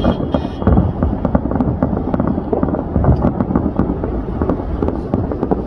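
A heavy fireworks barrage: shells bursting continuously, with a dense low booming and many sharp cracks and pops, several a second.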